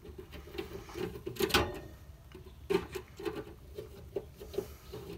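Pliers gripping and turning a stripped screw loose from its hole: irregular metal clicks and rubbing, with one louder click about one and a half seconds in.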